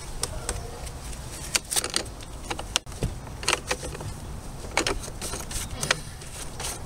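Short plastic scraping and clicking, about eight strokes, as a gloved hand twists the 2-inch PVC slip union and pipe into place on a pool pump's inlet.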